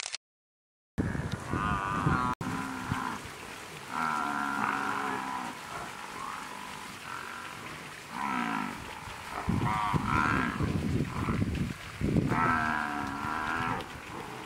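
Large animals calling again and again: a string of drawn-out pitched calls, each about a second long, some higher and some lower, with a short dropout to silence just after the start.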